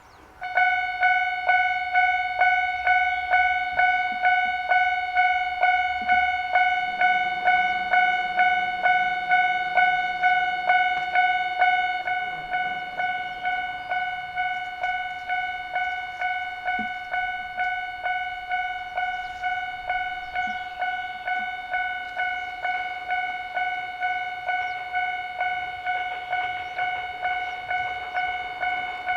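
Japanese railway level-crossing warning bell going "kan-kan": a clanging ring at about two strikes a second that starts about half a second in and carries on steadily, a little quieter after about twelve seconds. A faint low rumble lies underneath partway through.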